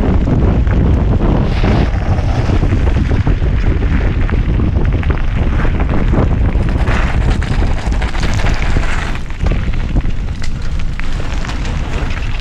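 Wind rumbling on the microphone of a camera riding a mountain bike down a gravel trail. Under it are the crunch of the tyres and frequent small rattles and knocks as the bike rolls over bumps.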